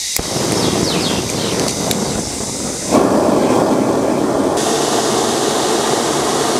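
Hose-fed gas blowtorch running with a steady hissing roar as its flame singes the bristles off a pig's head. The roar gets suddenly louder about three seconds in and holds there.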